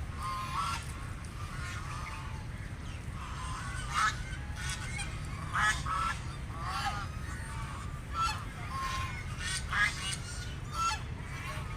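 Several ducks quacking in short, repeated, overlapping calls, a few of them louder, over a steady low rumble.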